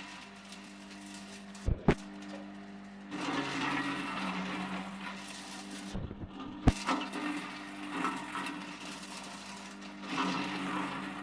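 Electric blender-type feed chopper running with a steady motor hum while chopping cassava leaves. A few sharp knocks come about two seconds in and again past the middle.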